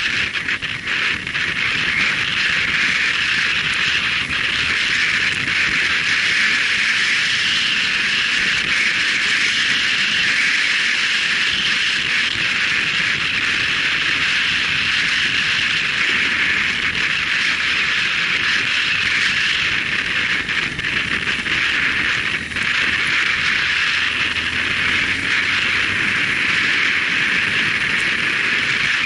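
Riding noise from a moving motorcycle, recorded by an action camera mounted on the bike: a steady rush of wind and road noise with the engine running underneath.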